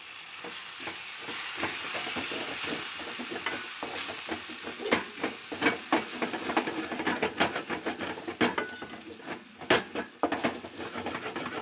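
Onions, tomatoes and masala powder sizzling in oil in a metal pot while a wooden spatula stirs them, scraping and knocking against the pot. The knocks come thicker and louder from about halfway through.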